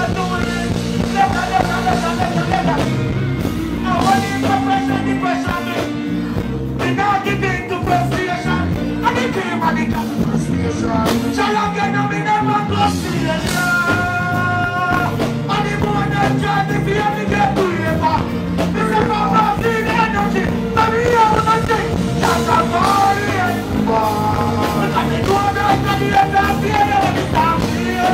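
Live dancehall performance: a deejay singing into a microphone over a loud backing track played through the stage sound system.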